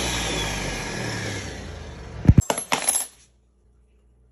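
Ninja countertop blender running on a celery and zucchini smoothie, its whir fading away over about two seconds as the motor winds down. A few loud, sharp knocks and clacks follow about two seconds in, and then the sound cuts off abruptly.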